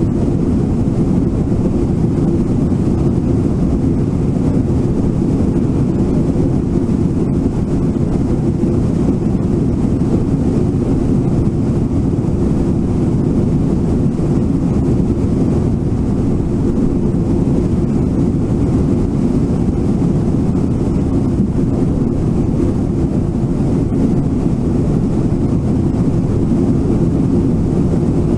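Brooks Falls' whitewater rushing: a loud, steady, low roar of falling water that does not change.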